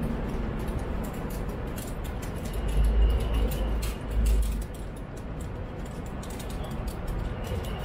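City street traffic noise: a steady hum of passing vehicles, with two deep rumbles about three and four seconds in.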